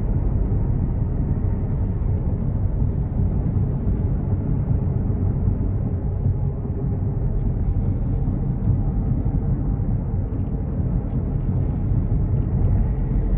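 Steady low rumble of road and wind noise inside a moving car's cabin on the highway, with a faint hiss rising over it a few times.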